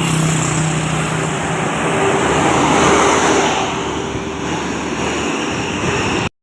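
Large bus passing close by, its engine and road noise building to a peak about halfway and then easing off, before cutting off suddenly near the end.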